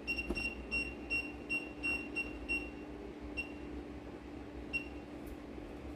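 Short, high-pitched electronic beeps: about eight in an uneven run over the first two and a half seconds, then two more spaced out later, over a steady low hum.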